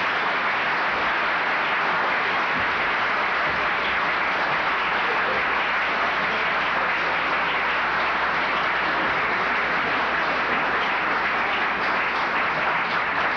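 Large seated audience applauding steadily, many hands clapping at once into an even wash of sound.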